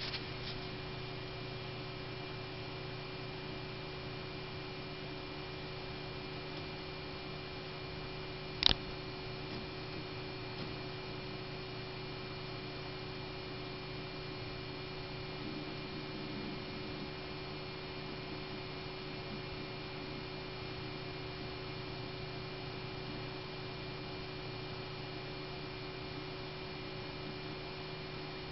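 Steady hum of a PowerMac 8500 desktop computer running as it boots, with a few constant tones in it and one sharp click about nine seconds in.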